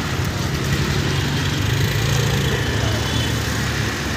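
Road traffic: a steady low engine hum from passing cars, motorbikes and auto-rickshaws.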